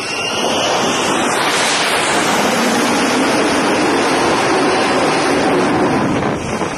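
Jet engine roar of an aircraft passing close by. It swells over the first second or two, holds steady, then eases off near the end.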